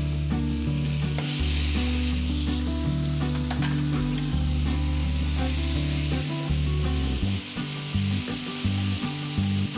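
Chopped tomatoes and onions sizzling in hot sesame oil in a pan as they are stirred, a steady frying hiss. A low background music bed plays underneath.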